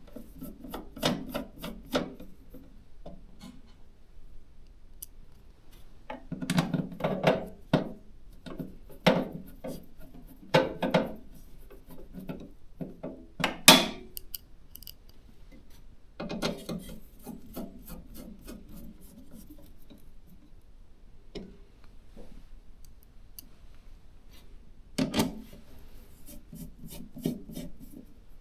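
Hands fitting a motherboard into a PC case: bursts of scraping and rubbing with quick clicks, and one sharp, louder click about fourteen seconds in.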